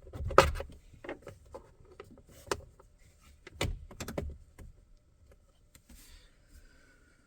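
Plastic clips of a 2022 Chevrolet Colorado's steering column shroud clicking and snapping as the upper and lower covers are pried apart with a pick, a handful of sharp snaps, the loudest about half a second in, fading to light plastic rustling near the end.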